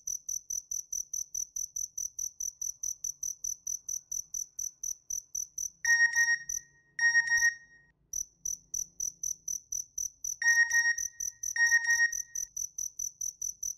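Crickets chirping steadily, about four to five chirps a second. Twice, around the middle and again near the end, a phone's message alert sounds: a pair of short, clear electronic chime tones.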